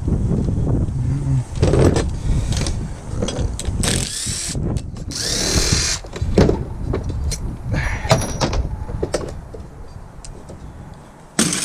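Power drill running in bursts to back out screws from an oxygen concentrator's compressor, then separate metallic clicks and knocks as parts are handled.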